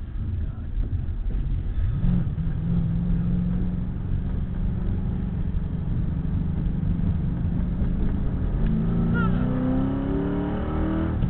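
2009 Mustang GT's 4.6-litre V8 with long-tube headers under way: the engine note rises about two seconds in and holds steady, then climbs through the revs from about eight seconds in and drops sharply near the end, as at an upshift.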